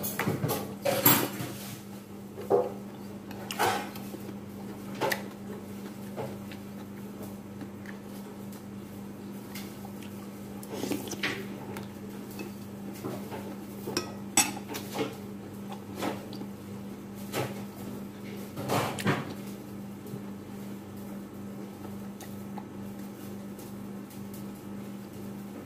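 Eating sounds: scattered sharp crunches of a crisp kerupuk cracker being bitten and chewed, and clinks of a metal spoon against a ceramic plate, irregularly spaced, over a steady low hum.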